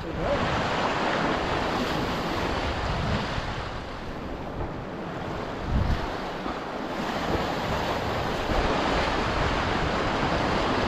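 Sea surf washing against rocks, with wind buffeting the microphone; a brief low bump about six seconds in.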